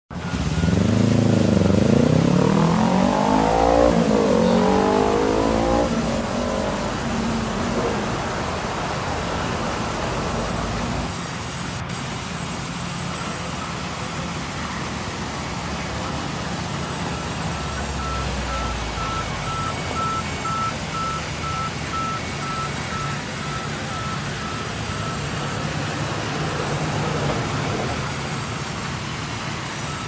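Industrial band sawmill running and cutting logs. A pitched whine swoops up and down over the first six seconds, then settles into a steady, dense machine noise.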